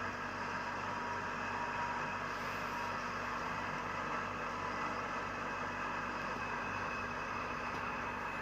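Steady machine hum and hiss with a few held tones, unchanging throughout.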